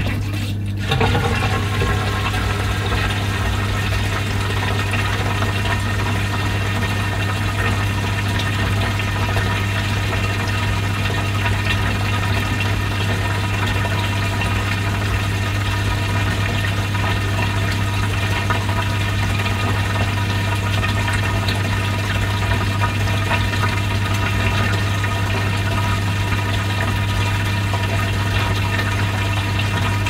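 AEG 8000 Series Lavamat washing machine's drain pump running, pumping water out of the drum: a steady low hum with rushing, gurgling water.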